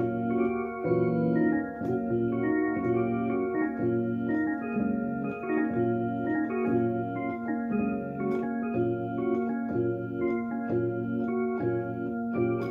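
Electronic keyboard played with an organ-like sound: repeated chords pulse steadily in the low end while a single high note is held over them and the upper notes shift from chord to chord.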